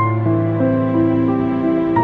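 Gentle background music: a slow melody with notes changing every few tenths of a second over a held low note.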